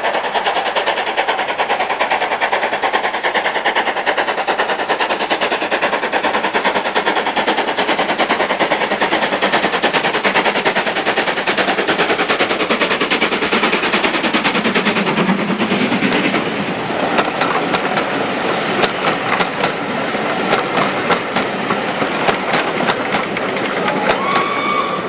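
Steam locomotive working hard, with a rapid, steady exhaust beat as it approaches and passes close by about halfway through. After it, the carriages run past on the rails, and there is a short steady squeal near the end.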